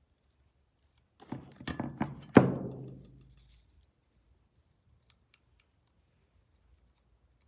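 Handling noise on a table: a quick run of knocks and clatter, the loudest a single thump about two and a half seconds in that rings briefly and fades, then a few faint ticks.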